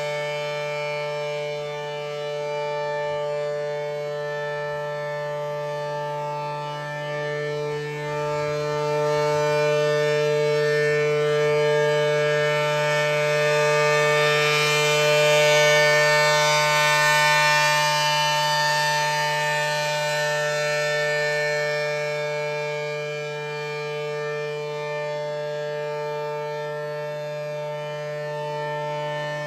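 ACA P-10 tornado siren sounding a steady tone at constant pitch, swelling louder toward the middle and easing off again. It runs a little slow because of a bad run winding in its motor.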